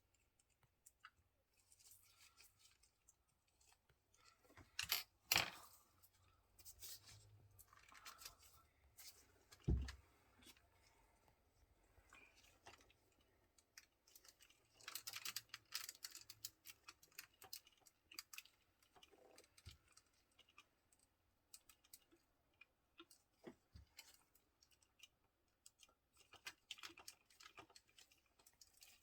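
Faint, scattered clicks and small knocks of a plastic Tobot Z transforming toy robot being handled and worked on, with a louder click about five seconds in and a dull thump about ten seconds in.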